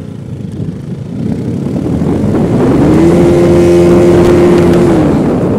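Motorcycle engine pulling harder, its note rising, holding steady for about two seconds and dropping away near the end, over a rushing of wind on the microphone that builds with speed.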